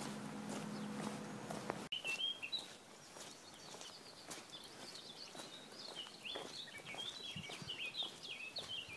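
A small songbird singing a long string of quick, chirping phrases, starting about two seconds in. Before that, a steady low hum for the first two seconds that stops abruptly.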